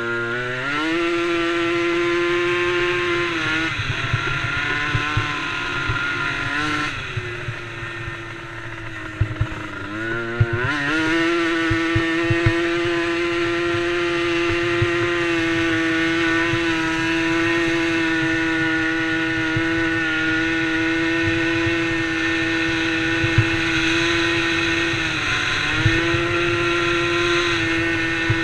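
Small engine of a DRR DRX90 youth quad running at high revs. The pitch climbs near the start and again about ten seconds in, with short dips where the throttle eases, and otherwise holds steady and high.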